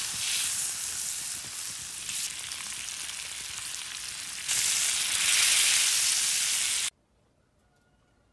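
Food coated in chili paste sizzling on a hot black stone slab, a dense, even hiss that gets louder about halfway through and then cuts off abruptly near the end.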